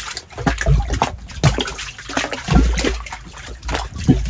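Water trickling and splashing into a shallow muddy pool in irregular splashes, with low rumbling on the microphone.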